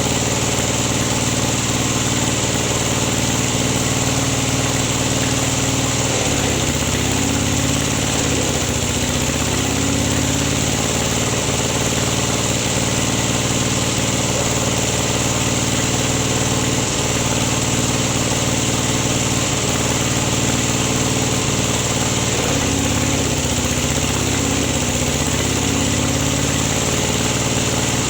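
Engine-driven rubber latex press machine running steadily, its motor a constant mechanical drone whose low tones waver briefly twice.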